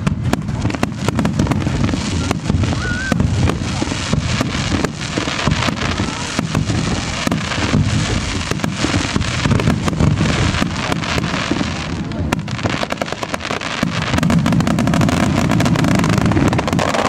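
Barrage of aerial firework shells bursting over and over: continuous deep booms, with a dense crackle of many sharp snaps through the middle.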